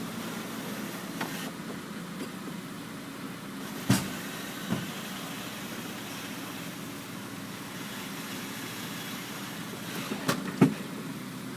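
Saab 900 convertible's power soft top cycling: a steady mechanical hum with a few sharp knocks as the top and its bows move and seat. The loudest knock comes about four seconds in, and two more come close together near the end. The owner says this top binds at its fifth bow after a tonneau motor failure.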